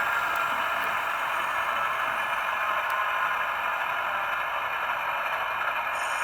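HO scale model GE Tier 4 GEVO diesel locomotive's sound decoder playing the idling engine through its small onboard speaker after the model has stopped: a steady, even hiss-like running sound with no clear pitch.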